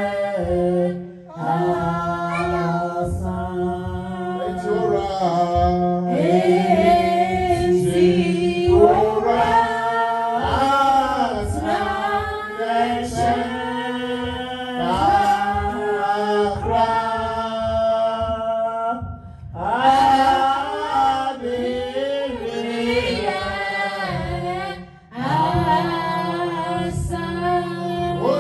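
Voices singing a worship song in phrases, over a steady low drone, with short breaths between lines about a second in, partway through and near the end.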